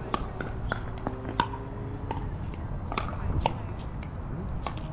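Pickleball rally: sharp, irregular pops of paddles striking the hollow plastic ball and of the ball bouncing on the hard court, with a faint steady high tone underneath.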